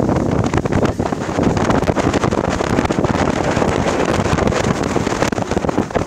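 Wind buffeting the microphone on the stern of a moving ship: a loud, rough rush with constant rapid crackling.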